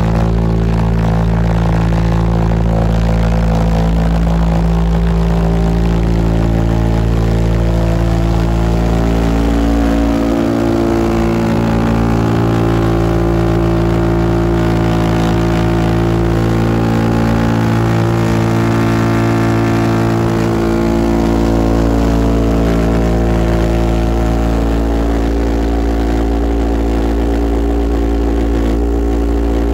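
Super Dragon 450-pound-thrust pulsejet engine running flat out: a loud, rough, unbroken drone of rapid pulsing combustion made of a stack of steady tones, whose pitch shifts a little for several seconds midway through.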